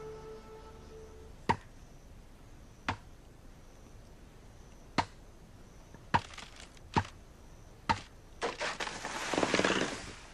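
A machete chopping into a giant bamboo stalk: six sharp strikes at uneven intervals. Near the end the cut stalk falls with a loud rush of rustling leaves and branches.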